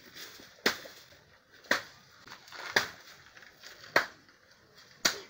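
Five sharp knocks, evenly spaced about one a second, over faint background hiss.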